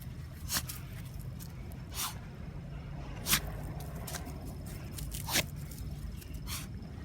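Small Maltipoo puppy sneezing: five short, sharp bursts at irregular intervals of one to two seconds, over a steady low rumble.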